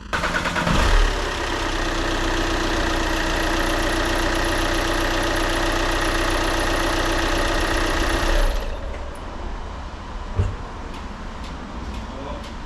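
Volkswagen EA189 2.0 TDI four-cylinder diesel cranked on the starter and catching within about a second, then running steadily on its first start after a top-end rebuild with new camshafts, rocker arms, hydraulic tappets and timing belt. Near the end it drops to a quieter steady running.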